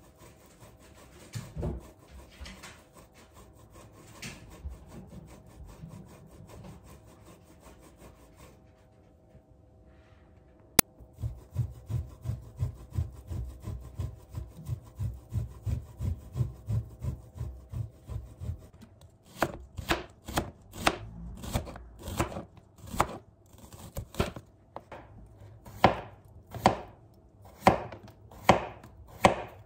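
Tempeh rubbed against a stainless steel box grater: faint scraping at first, then steady rhythmic grating strokes about two or three a second, with one sharp click about eleven seconds in. From about nineteen seconds in, a chef's knife slices a cucumber on a plastic cutting board, a sharp chop about every two-thirds of a second.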